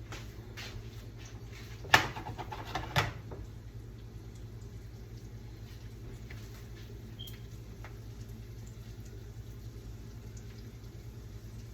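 Kitchen clatter: a sharp knock about two seconds in and another about a second later, with a few faint ticks, as things are handled and set down while tidying. A steady low hum runs underneath.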